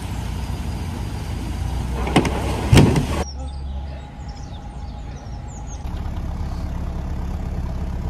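Narrowboat's diesel engine running with a steady low hum, broken by two sharp knocks between two and three seconds in. After a cut the hum drops away and faint high chirps are heard, then the engine hum comes back about six seconds in.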